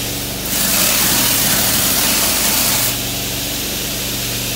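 Pressure washer running: a steady engine hum under the hiss of the wand's high-pressure water spray. The spray grows louder about half a second in and eases back about three seconds in, while fresh water flushes the soap line.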